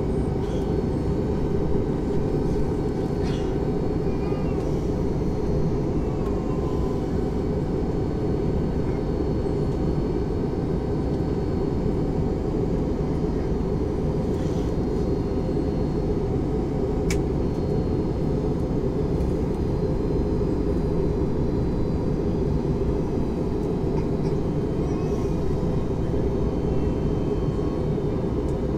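Airbus A321neo cabin noise in flight: a steady low rush of airflow and engine sound with faint even tones above it. A single faint click comes about two-thirds of the way through.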